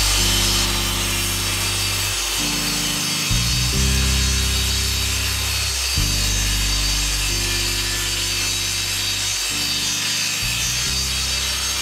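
Background music with chord changes every second or two over the steady hiss of a table saw cutting a melamine-faced chipboard panel; the cutting noise is brightest about the first second.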